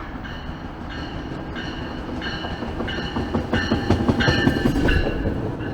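Metrolink commuter train pulling into the station: a low rumble that grows louder toward the end, with a short ringing tone repeating at an even pace.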